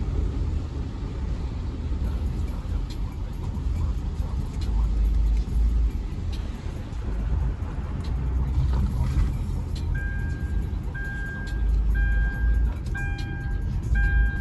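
Low rumble of a car driving, with gusts of wind buffeting. About ten seconds in, an electronic beeping chime starts, sounding about once a second.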